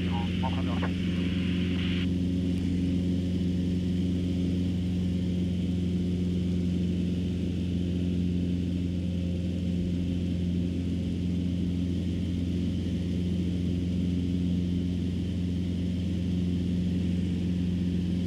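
Cessna 150's four-cylinder Continental O-200 engine and propeller droning steadily, heard inside the cabin. A higher hiss over it stops suddenly about two seconds in.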